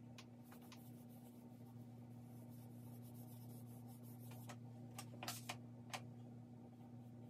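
Charcoal scratching faintly across drawing paper in shading strokes, over a steady low hum. A few short light taps follow between about four and six seconds in.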